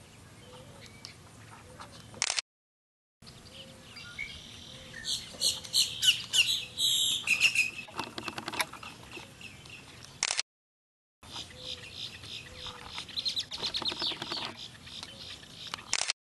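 Wild birds calling: many short, sharp, high chirps repeated in quick runs, busiest about halfway through and again near the end. The sound cuts out briefly twice.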